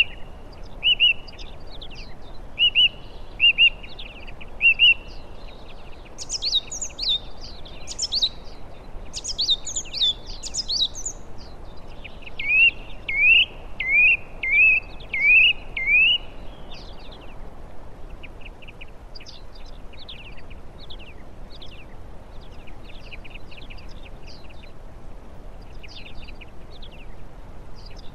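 Small songbirds singing and calling: a run of short repeated whistled notes, then quick high sweeping phrases, then six loud rising notes about halfway through, followed by fainter scattered chirps. A soft steady background hiss runs underneath.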